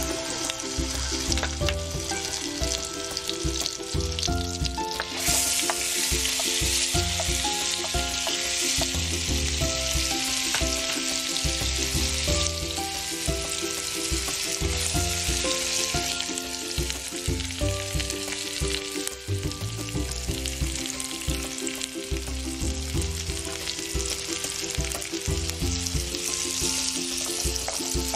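Minced garlic and sliced red onion sizzling in hot oil in a frying pan and being stirred with a spatula; the sizzle grows louder about five seconds in. Background music plays throughout.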